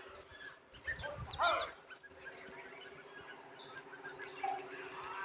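A short, loud animal call about a second in, with faint bird chirps scattered around it over a steady low hum.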